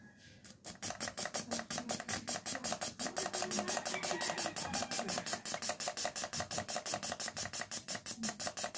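Suzuki Alto fuel injector on an improvised bench tester, pulsed rapidly and spraying carb cleaner: an even train of short clicking, hissing bursts, about eight a second, starting about half a second in. The injector is being cleaned and checked for a good spray, and is judged okay.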